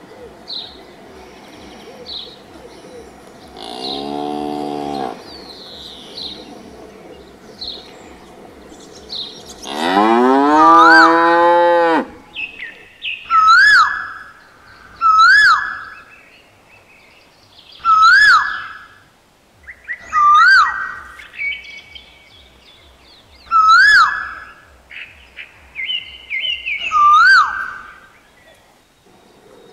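A cow mooing: a short moo about four seconds in, then a long, loud moo that rises in pitch around ten seconds in. After that a bird calls over and over, a sharp up-and-down note every two or three seconds, with fainter chirps earlier on.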